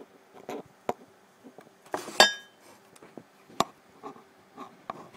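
Knocks and taps from the phone being handled and set in place, with one sharp metallic clink about two seconds in that rings briefly.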